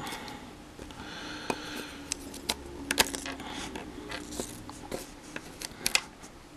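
Chopsticks clicking and scraping against small plastic model-kit parts in a run of irregular light ticks, as they slip on the smooth plastic and fail to grip it.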